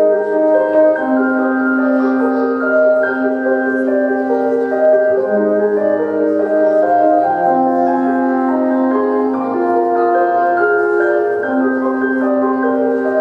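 Music playing: slow held keyboard-like chords with bell- or mallet-like notes, without singing.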